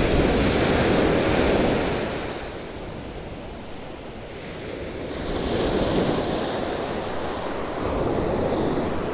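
Ocean surf breaking and washing up a sandy beach, with wind buffeting the microphone. The wash is loudest at the start, eases off, then builds again as the next wave comes in about six seconds in.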